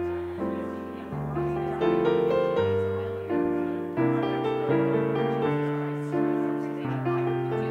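Instrumental piano music: slow chords, each struck and then left to fade before the next.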